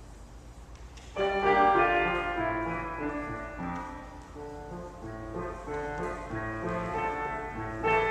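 Instrumental music for a ballet exercise, starting abruptly about a second in, with a sequence of clear melodic notes.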